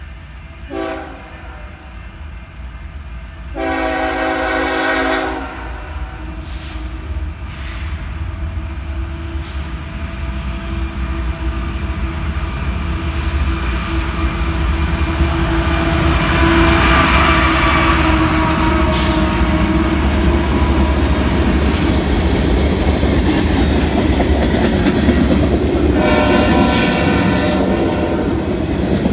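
BNSF diesel freight locomotive sounding its air horn: a short blast about a second in, a long blast at about four seconds, and another blast near the end. Between the blasts the deep rumble of the diesel engines builds as the train approaches, then the loaded cars roll past with wheel clatter.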